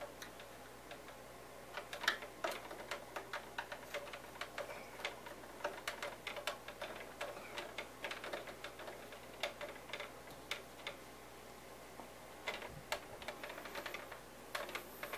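Small hex driver working tiny screws out of a model helicopter's tail cover: faint, irregular clicks and taps of metal tool on screw and fiberglass body. The clicks pause briefly about twelve seconds in, then resume.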